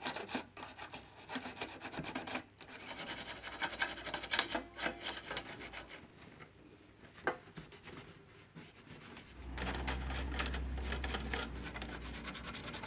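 A toothbrush scrubbing the metal levers and springs of a Grundig record-changer mechanism during degreasing, a fast, irregular scratchy rubbing. It eases off for a few seconds in the middle, then resumes over a low steady hum.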